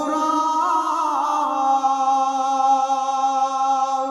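A man chanting a Ramadan devotional verse unaccompanied, holding one long sung note with a brief ornamental waver about a second in. The note ends near the end.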